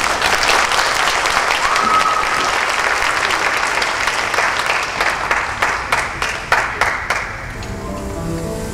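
Audience applauding, the clapping thinning out over the last couple of seconds as soft music begins.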